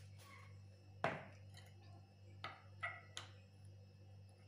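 A soft knock about a second in, then three light clinks of a steel spoon against a small glass bowl as a garlic-chilli chutney is stirred, over a faint steady hum.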